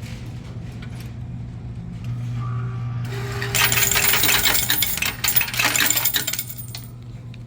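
Small metal objects jingling and rattling loudly for about three seconds in the middle, over a steady low hum.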